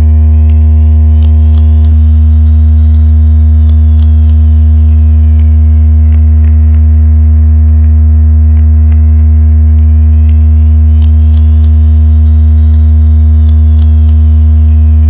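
Loud, steady low electronic hum with several steady higher tones above it, made as a fish-attracting frequency track. A fainter high tone glides slowly up and back down over about nine seconds, twice, with scattered faint ticks throughout.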